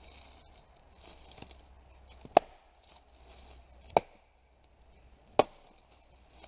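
Double-bit axe striking firewood rounds: three sharp chops about a second and a half apart as the wood is split.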